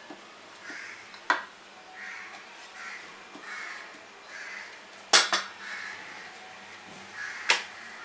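Wooden rolling pin rolling out thepla dough on an aluminium rolling board, with sharp clacks of wood on metal: one about a second in, a quick double clack about five seconds in, and one more near the end.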